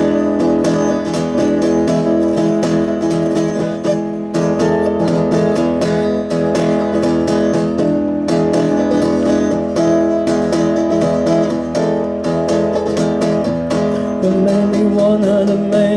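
Acoustic guitar strummed in steady chords: the instrumental intro of a song, played live.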